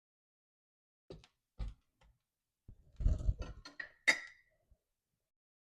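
A few separate knocks, then a cluster of thumps and a sharp clatter with a short ringing tone about four seconds in, from objects being handled.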